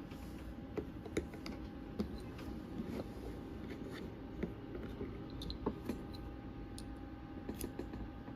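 Light, irregular clicks and taps of small items being handled, over a faint steady hum.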